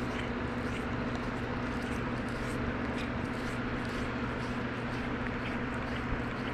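Domestic cat purring steadily close up, a continuous low rumble, with faint rustles as the cat rubs its face against a hand.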